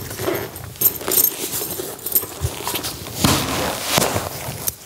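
HJC RPHA 1 full-face motorcycle helmet being handled and pulled on over the head: irregular knocks and sharp clicks of the shell, with rustling of the padding and clothing, loudest a little over three seconds in.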